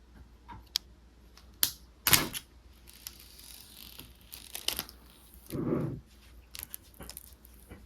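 Handling sounds of an iPad unboxing: scattered light clicks and taps on the box and packaging, a louder scrape about two seconds in, and a short rustle near six seconds.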